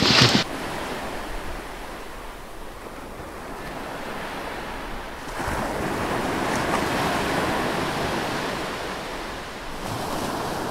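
A brook rushing and splashing down over rocks where it runs into the sea: a steady watery noise that gets louder about halfway through.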